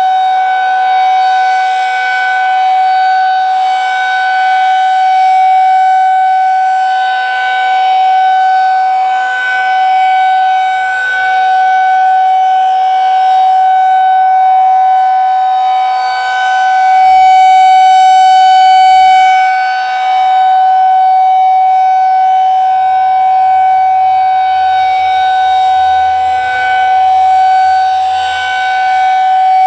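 Federal Signal 2001-SRNB rotating outdoor warning siren sounding its steady Alert signal during a scheduled test: a single unwavering tone that grows louder and softer every several seconds as the rotating horn sweeps past.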